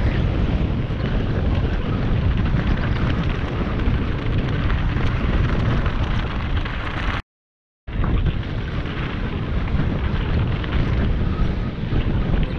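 Wind buffeting the microphone with the rumble and rattle of a mountain bike riding downhill over dirt and gravel trail. The sound drops out completely for about half a second a little past the middle.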